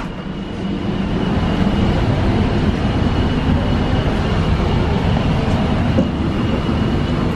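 Steady rumble heard inside an Indian Railways AC double-decker express coach, with a thin steady high-pitched tone above it.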